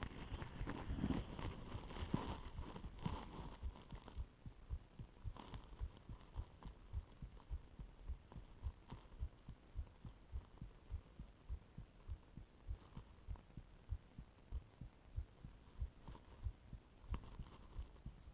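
Human heartbeat heard through a stethoscope: steady, evenly spaced low thumps. A rustling noise sits over the beats for the first few seconds.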